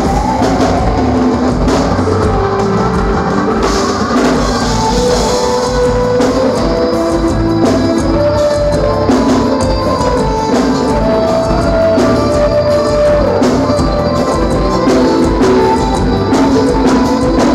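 Live forró band playing loud and steady: a drum-kit beat and bass under a sung melody with guitar.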